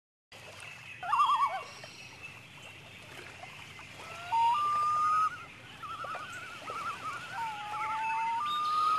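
Common loons calling: a quavering tremolo about a second in, then long wailing notes that step up in pitch around four seconds in and again near the end, with more wavering tremolo between them. Faint, steady lake water lapping runs underneath.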